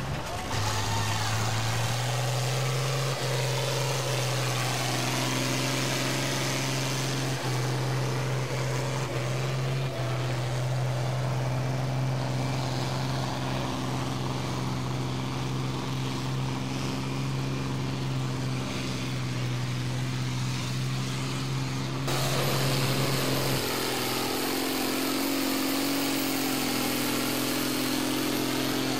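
Farm tractor's diesel engine running hard at steady revs as it drags a weight-transfer pulling sled, belching black smoke. About 22 seconds in the sound cuts to another tractor's engine running at lower revs.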